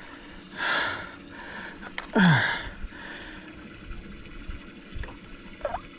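Water splashing in a boat's live tank as a big bass is handled: one short splash about half a second in and a second just after two seconds, with fainter dripping and trickling between.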